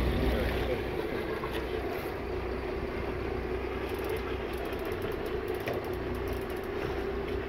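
Boat engine running steadily: a low hum with a steady higher drone, under a hiss of wind and water.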